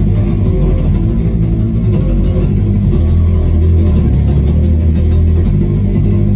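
Thunderbird-style electric bass played loud with a pick: a riff of low sustained notes that shifts pitch about halfway through and again near the end, played while its tone is being dialed in for recording.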